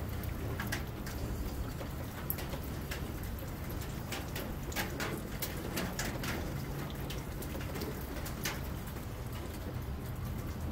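Motor oil being poured from a plastic jug into an engine's oil filler neck, with irregular short gurgles and splashes over a low steady hum.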